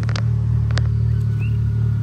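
Side-by-side UTV engine running at a steady low speed, its pitch holding even, with a few sharp clicks over it.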